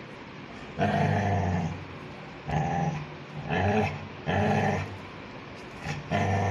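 Labrador puppy growling through a bone held in its mouth: about five low growls in a row, with short pauses between. It is guarding the bone against being taken away.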